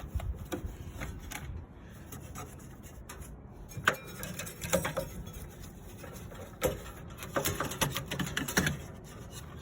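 Irregular clicks, taps and light rubbing from hands and a brush working on parts inside a furnace cabinet, with one sharper knock about four seconds in.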